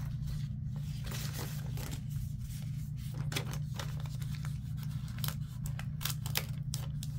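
Paper sticker sheets handled by hand: crinkling, quick clicks and tearing-like crackles as stickers are peeled from their backing and pressed onto a planner page, over a steady low hum.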